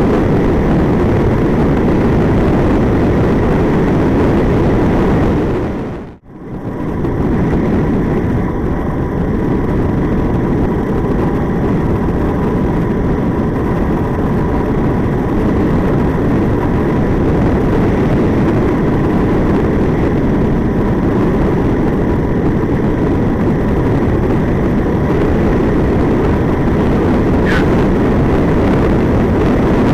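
Wind rushing over the microphone of a bike-mounted camera on a tandem bicycle moving at speed along a paved highway: a steady, dense low rumble. It drops out briefly about six seconds in and then returns.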